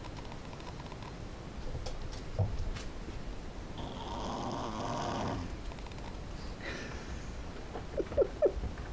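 A tiny Sleeve Pekingese dog snoring in her sleep: one long snore about four seconds in, a shorter breath a little before seven seconds, and three quick squeaky snorts near the end.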